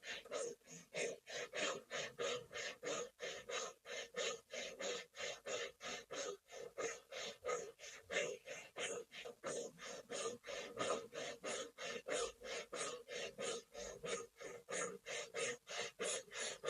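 Rapid, even breathing in and out through the mouth with the lips rounded in an "O", pumped from the navel, about three breaths a second: a Kundalini yoga breathing exercise.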